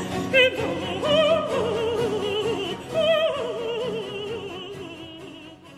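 Operatic singing with strong vibrato over instrumental accompaniment, fading out over the last few seconds.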